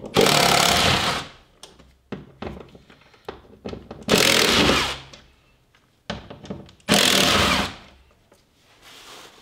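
A cordless power driver running in three short bursts of about a second each, unscrewing the fasteners of a truck door's power-window motor, with small clicks of handling between the bursts.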